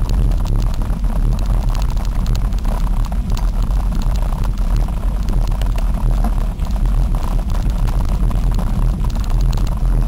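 Wind buffeting the camera's microphone as the bike rolls along a dirt road, a steady low rumble with a constant rattle of small clicks from the bumpy surface.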